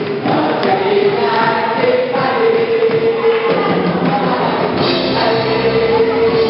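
Crowd of young people singing a worship song together over backing music. The accompaniment fills out in the low end about halfway through.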